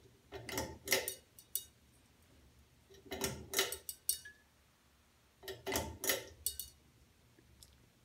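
Ceiling fan light kit's metal bead pull chain being pulled three times, each pull a cluster of sharp switch clicks and chain rattle. The second pull leaves the two preheat fluorescent tubes switched off.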